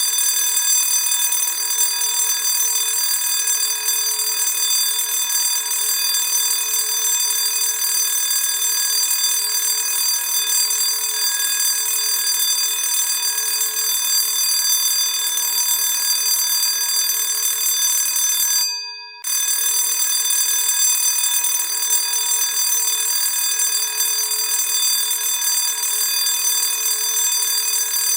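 School bell ringing continuously, with one short break about two-thirds of the way through.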